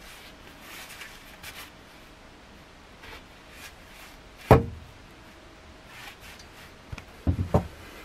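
A steel hammer head knocking against a wooden workbench and a bench vise: one loud knock about halfway through, then a quick run of three or four knocks near the end as the hammer is set into the vise.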